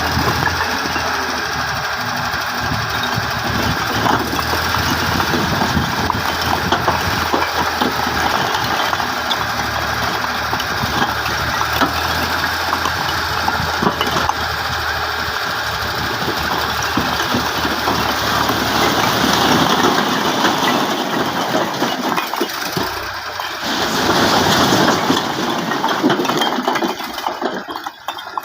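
An engine running steadily, its low hum dropping away about twenty seconds in while the sound gets louder, with a brief dip near the end.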